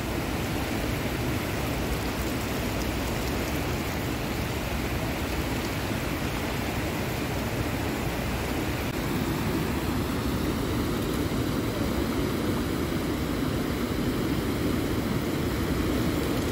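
Steady rush of a fast river flowing over rocks and rapids, a little louder from about halfway through.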